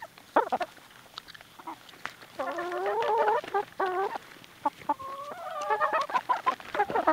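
Barred Plymouth Rock hens clucking, with a couple of long drawn-out calls, while they peck a muffin from a hand. Quick sharp taps of their beaks pecking come in between the calls.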